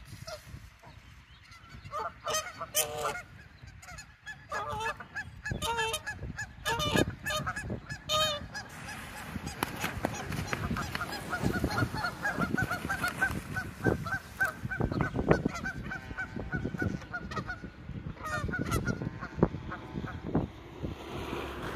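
Canada geese honking: a few separate honks in the first several seconds, then a long rapid run of repeated calls that ends a few seconds before the close.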